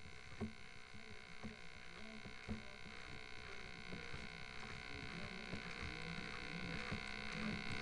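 Radio-controlled Senior Telemaster model airplane rolling over grass: a faint steady engine hum at low throttle, with scattered knocks and thumps as it bumps along. It grows slightly louder toward the end.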